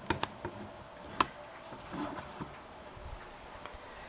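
A few light clicks and taps from handling in a quiet kitchen, the sharpest three within the first second and a half.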